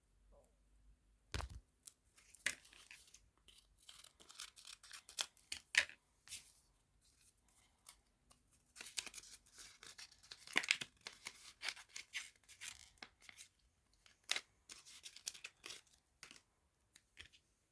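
Close-up crackling and tearing noises, made of rapid irregular clicks in clustered bursts with short pauses between them, like paper or plastic being torn or crinkled by hand. A single sharp knock comes about a second and a half in.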